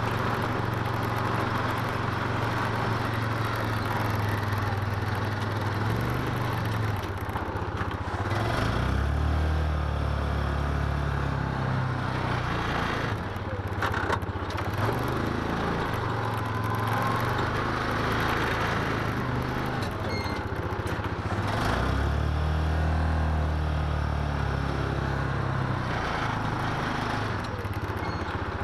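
Yamaha Rhino UTV's single-cylinder engine running while plowing snow, its pitch rising and falling several times as the throttle is worked, with a few brief clunks along the way.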